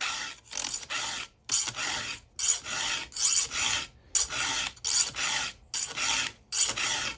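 Round chainsaw file rasping across a saw chain's cutter tooth in repeated hand strokes, a little under one a second with short pauses between. It is cutting the tooth back deeper into the gullet and taking a good-sized chip of metal.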